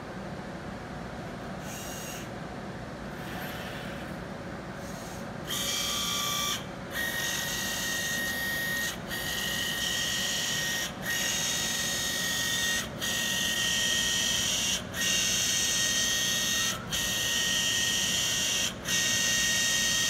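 Automated liquid-handling robot running: a low steady hum, then about five seconds in its motors start a loud whirring with a steady high whine, broken by short pauses about every two seconds as the pipetting arm goes through repeated moves.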